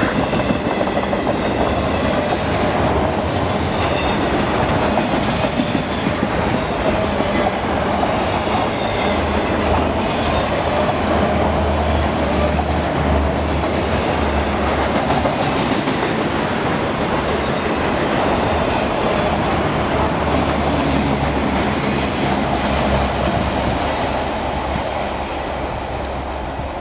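Freight train of autorack cars rolling past, the steel wheels clattering steadily over the rail joints. The noise eases off a little near the end.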